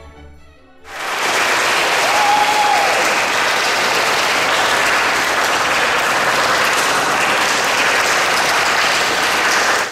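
Orchestral music fades out, and about a second in an audience breaks into loud, steady applause, with one brief cheer early in the clapping.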